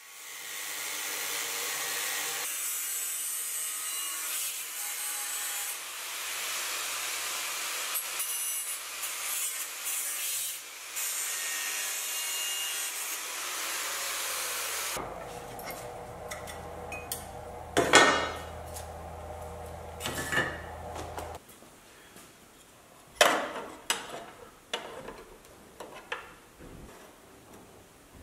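Angle grinder with a cut-off disc cutting through a prefabricated sheet-steel door-sill repair panel: a steady, high hiss for about fifteen seconds. After that it is quieter, with a few sharp metallic knocks and clinks as the cut panel is handled and fitted.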